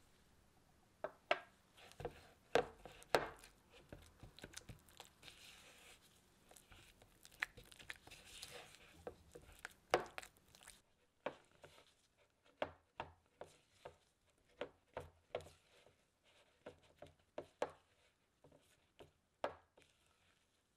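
Silicone spatula stirring an egg yolk into creamed butter in a mixing bowl: irregular soft knocks as it taps and presses against the bowl, with a few seconds of steady scraping in the middle.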